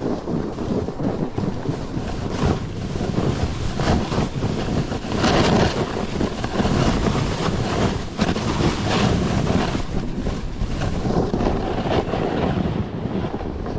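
Wind buffeting the microphone in loud, gusting surges.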